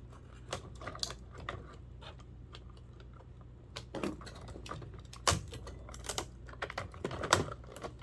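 Irregular small clicks and taps of tools against the plastic and circuit-board parts of a clock radio being taken apart, with a few louder knocks.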